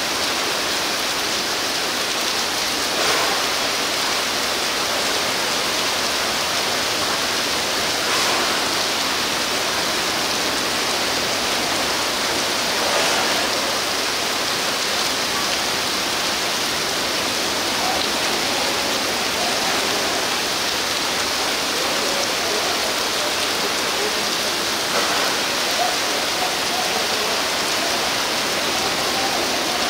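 Heavy rain pouring onto the surface of a large outdoor pool: a steady, dense hiss with a few brief louder swells.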